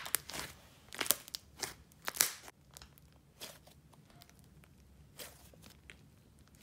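Thick swirled clay and icing slime being squeezed and pulled apart by hand, giving a run of crackling pops and soft tearing. The pops are loudest in the first two and a half seconds, then thin out to a few small ones.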